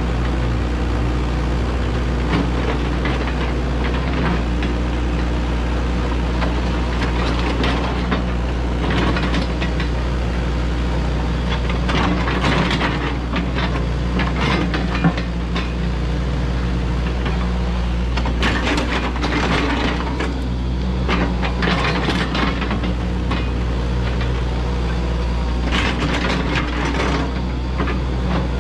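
Yanmar ViO80 excavator's diesel engine running steadily under load while the bucket digs, with repeated bouts of scraping and rattling as it drags through dirt and gravel, and one sharp knock about halfway through.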